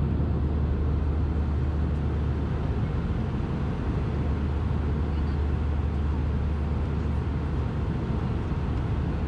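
Steady low drone of an airliner cabin in flight: the constant engine and airflow noise heard inside the passenger cabin.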